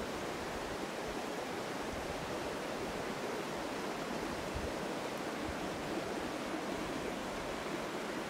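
Steady, even rushing outdoor ambience, a constant hiss of moving air or water with no calls or distinct events.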